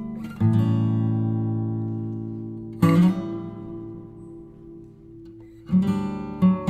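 Background music: acoustic guitar chords, strummed and left to ring out, struck about every two to three seconds.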